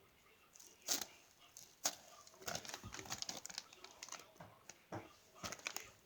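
Plastic crinkling and handling clicks: sharp crinkles about a second in and just before two seconds, a run of crackling after that, and another cluster near the end.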